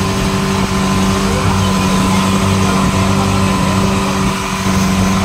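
Longtail boat engine running steadily at an unchanging pitch, a constant hum.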